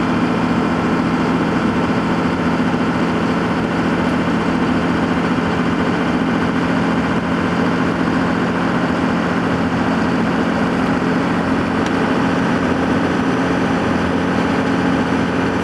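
Dodge Ram's 5.9-litre Cummins turbo-diesel heard from inside the cab while cruising on light throttle, about a pound and a half of boost: a steady, unchanging engine drone mixed with road noise.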